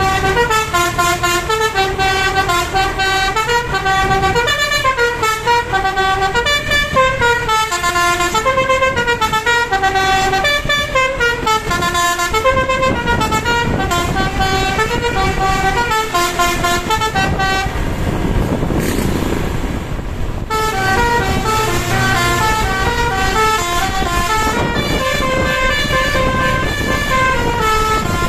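Tour bus's 'telolet basuri' multi-tone air horn playing a melody, its notes stepping up and down in quick succession. The tune breaks off for about three seconds roughly two-thirds of the way through, then starts again.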